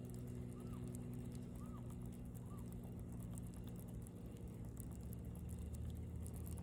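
A faint, steady low hum with three short, high chirps in the first few seconds and a light, fine crackle.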